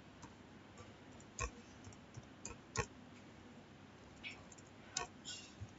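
Keystrokes on a computer keyboard: about ten faint, sharp key clicks at an uneven typing pace.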